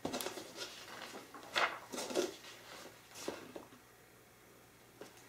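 Pages of a glossy-paper assembly manual being turned and smoothed by hand: a handful of soft paper swishes and rustles in the first three seconds or so, then near quiet.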